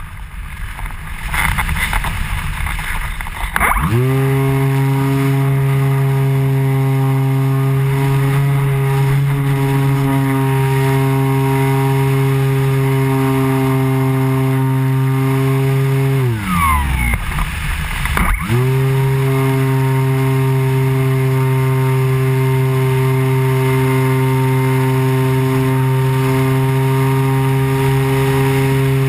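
Airflow noise over the model glider's nose, then about four seconds in its nose motor and propeller spin up and run at a steady pitch. Around sixteen seconds the motor winds down with falling pitch. It starts again about two seconds later and runs steadily until it begins to wind down at the very end.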